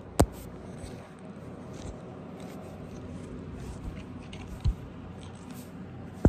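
Three sharp clicks over a steady low background hiss: one just after the start, one about two-thirds of the way through, and one at the end.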